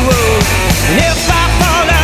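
Rock music soundtrack: a wavering melody line over steady bass and drums.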